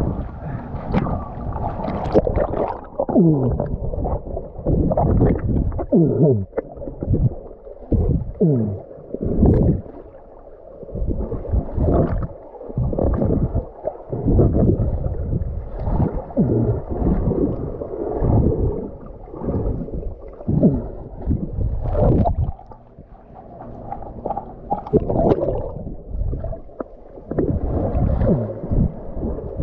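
Muffled underwater sound picked up by an action camera below the surface: water sloshing and gurgling against the housing in irregular surges, with a few short sounds that fall in pitch.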